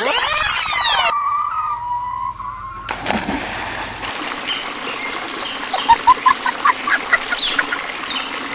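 A whooshing sweep that stops about a second in, then a steady whistle-like tone. At about three seconds a sudden splash gives way to a water hiss, with birds chirping over it, loudest in a run of short calls about six seconds in.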